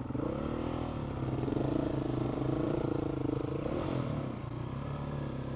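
Motorcycle engine running at low, steady revs, rising briefly just after the start and then holding steady.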